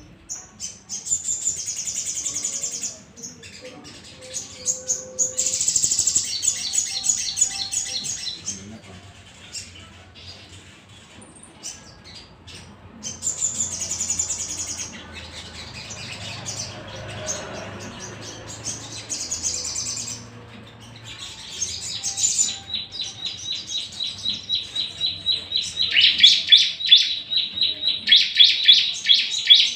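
Sunbirds (sogon) singing: bursts of high, fast chirping trills, and in the last third a rapid run of repeated notes that grows louder.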